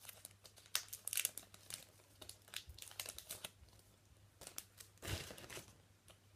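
Trading card pack wrappers crinkling and being torn open by hand, in irregular crackly bursts, with a fuller rustle about five seconds in.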